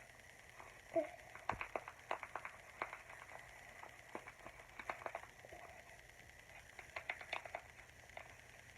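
Faint, irregular scratchy strokes of a marker colouring quickly on paper, coming in short clusters, with a brief vocal sound about a second in.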